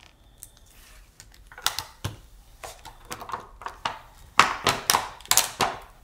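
Clear acetate sheet crackling and crinkling as it is peeled up and flexed off a sticky Cricut cutting mat: a run of sharp, irregular crackles, loudest a little past the middle.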